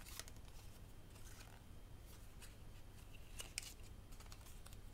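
Handheld corner-rounder punch clicking as it rounds the corners of a cardstock strip, with faint paper handling between the clicks. The sharpest click comes about three and a half seconds in.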